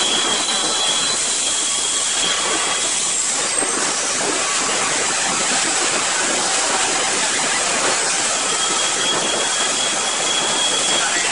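Steady loud hiss of running machine-shop machinery, with faint high-pitched whines near the start and again near the end.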